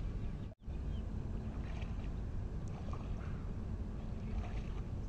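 Steady low rumble of wind on the microphone outdoors, cut by a brief dropout about half a second in, with a few faint distant sounds over it.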